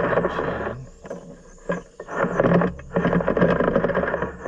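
Roller chain rattling through the drill's drive sprockets and idlers as the drive is turned to feed the new chain in. It goes in two spells, with a pause of about a second between them.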